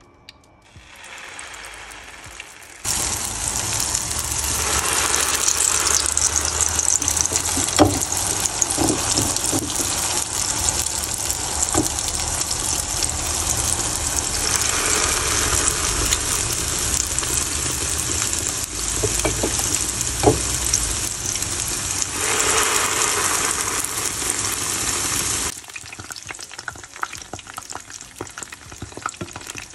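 Bean paste (akara) deep-frying in hot oil in a pan: a steady, loud sizzle that starts about three seconds in and drops much quieter near the end, with a few light clicks along the way.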